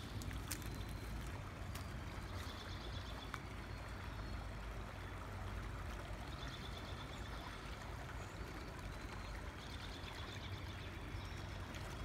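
Small rocky woodland creek running over stones in a steady wash of water. A bird's short high trill repeats three times.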